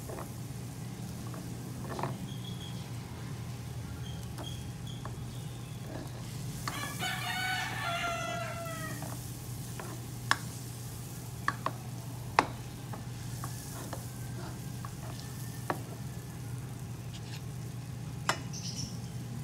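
Butter sizzling as it melts in a stainless wok, with a few sharp clicks of a spatula against the pan and a steady low hum underneath. A rooster crows once, for about two seconds, around seven seconds in.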